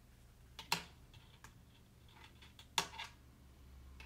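Light clicks and taps of stiff craft wires being handled and pushed through a stuffed crocheted toy. Two sharper clicks come, one under a second in and one near three seconds.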